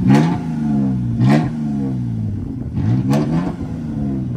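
Toyota Tacoma engine running with no exhaust fitted, blipped three times: the revs climb quickly and fall back to idle each time, near the start, about a second in and about three seconds in.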